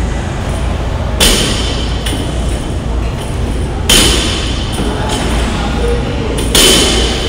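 Barbell loaded with bumper plates set down on a rubber gym floor during deadlift reps: three heavy thuds with a short metallic clank, one about every two and a half seconds. A steady low rumble sits underneath.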